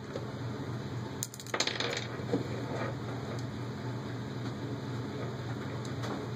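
Light metallic clicks and clinks of small screws and standoffs against a metal motor mount plate as they are fitted by hand, a few in the first half and one near the end, over a steady low hum.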